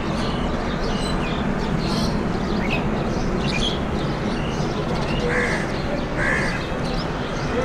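Crows cawing and small birds chirping, with two harsher caws a little past the middle, over a steady low rumble.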